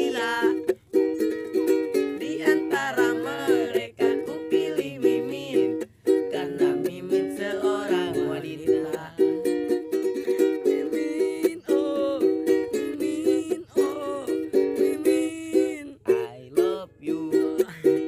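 Ukulele strummed in a steady rhythm, chord after chord, with a wavering higher melody line above the chords.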